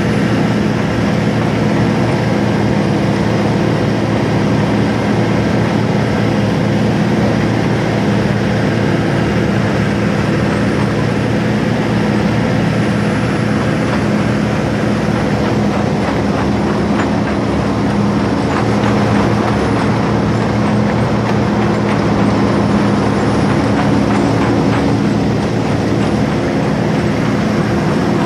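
Amphibious excavator's diesel engine running loud and steady, heard from beside the open cab, with a continuous fine clatter from its pontoon tracks as it drives through the water.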